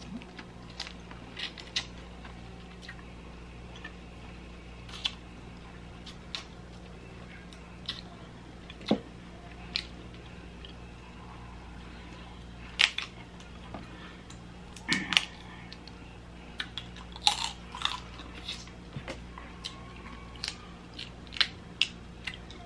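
Close-miked eating of boiled Dungeness crab and prawns: chewing, with irregular sharp cracks and crunches of crab shell, a few louder ones past the middle. A steady low hum runs underneath.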